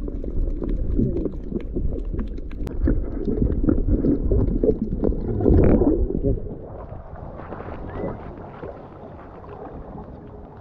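Muffled water sound picked up by a camera held underwater: low churning and sloshing with small clicks and bubble ticks as someone wades through shallow sea. About six and a half seconds in, it gives way to quieter open-air sound of gently lapping water.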